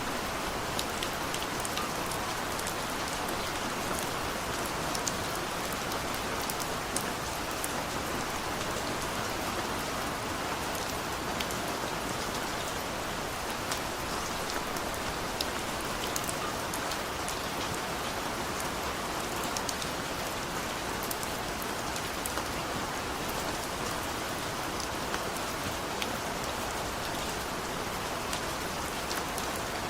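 Heavy rain falling steadily, a dense even hiss dotted with many small sharp drop ticks.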